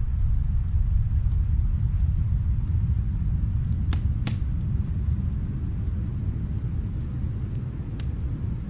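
Fireplace crackling: scattered sharp pops, two louder ones about four seconds in, over a steady low rumble.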